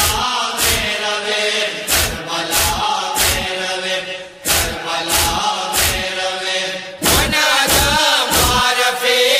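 Male voices chanting a noha, a Shia lament, over rhythmic chest-beating (matam): a sharp strike about every two-thirds of a second. About seven seconds in, the chanting and beating get louder and the strikes come closer together.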